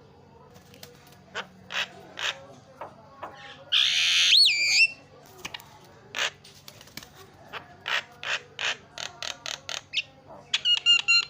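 Javan myna (jalak kebo) calling in a varied string of short chattering notes. About four seconds in comes a loud rasping call ending in a whistled glide, then a quick series of short clicking notes and a burst of whistles near the end.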